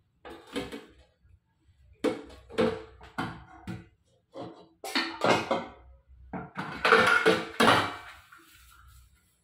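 Steel utensils, plates and lids clanking and ringing as they are handled and set down in a kitchen sink, in repeated clusters of knocks, loudest about seven to eight seconds in.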